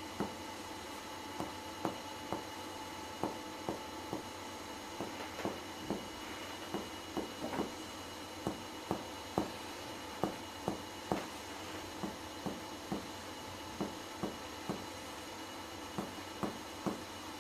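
Finger-on-finger chest percussion: a doctor's middle finger taps on a finger pressed to the patient's chest, making short dull taps about two a second, often in pairs, as he moves side to side over the lungs for comparative percussion. The finding over the lungs is a clear lung sound.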